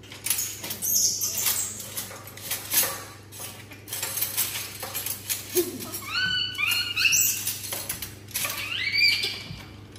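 A young pet monkey giving short, high-pitched squeaks: a quick run of rising-and-falling calls a little past the middle and another near the end, with light clicks and taps around them.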